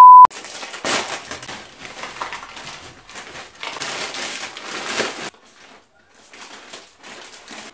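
A brief steady test-tone beep at the start, the loudest sound, then a few seconds of crinkling from a Doritos tortilla-chip bag as the chips are tipped into a plastic bowl. Fainter rustling follows near the end.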